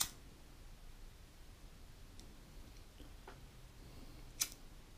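Mostly quiet, with a sharp click right at the start, a second sharp click about four and a half seconds in, and a few faint ticks between them, from a hand-held lighter being worked while heating shrink tubing.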